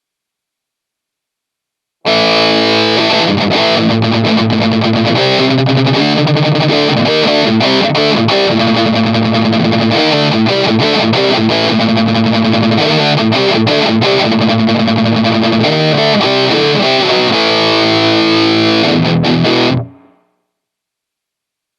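Electric guitar through an M-VAVE Mini Amp pedal and M-VAVE IR Box cabinet simulation, recorded direct with a distorted amp-model tone. Silent for about the first two seconds, then a passage of played notes that stops abruptly about two seconds before the end.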